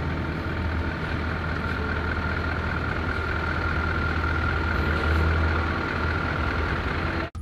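Scania tractor-trailer's diesel engine running low and steady as the truck rolls slowly forward, with a faint steady high whine above the rumble. The sound cuts off suddenly near the end.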